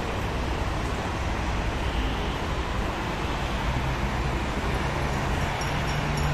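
Steady broad rumble of airport jet noise, with a faint high whine and a low hum from a jet's engines coming in about five and a half seconds in.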